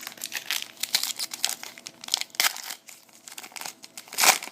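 Trading card pack wrapper crinkling in the hands as it is handled and torn open: a run of irregular crackles, with one louder crackle near the end.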